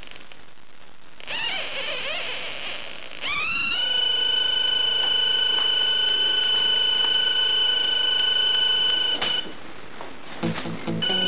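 Electronic kit's transistor pulse oscillator sounding through its small speaker: an eerie warbling tone whose pitch wavers, then rises and holds as a steady tone for about five seconds before cutting off suddenly. Its pitch is set by light falling on a CdS photocell, and a multivibrator gives the trembling quality.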